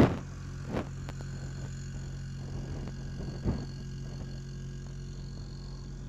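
Gree Versati III 8 kW heat pump outdoor unit running in its defrost cycle: a steady mechanical hum with a faint high whine above it. A few short louder noises stand out, the loudest right at the start, another just before a second in and one about three and a half seconds in.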